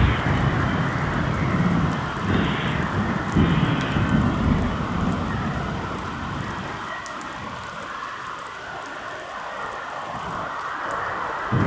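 Heavy rain falling steadily, a dense hiss, with low rumbling swells in the first few seconds that ease off in the second half.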